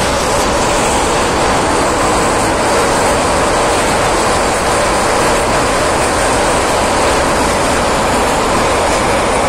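A passenger train running over a steel truss rail bridge, heard from on board: wheels on rails and the train's running noise make a loud, steady, even din without separate wheel clacks.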